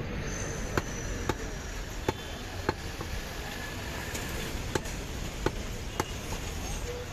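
Heavy butcher's cleaver chopping goat meat on a round wooden chopping block: about seven sharp chops at uneven spacing, with a pause of about two seconds in the middle, over steady background noise.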